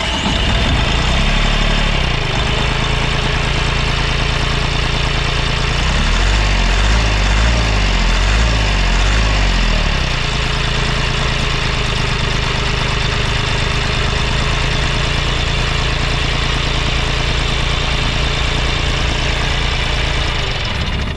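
DFSK Unimo's 1357 cc three-cylinder diesel engine (QC380Q) idling with a steady diesel clatter. Its note wavers up and down for a few seconds midway.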